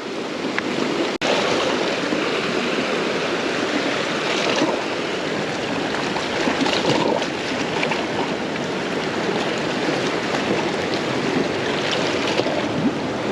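Ocean surf washing on the shoreline: a steady rush of water.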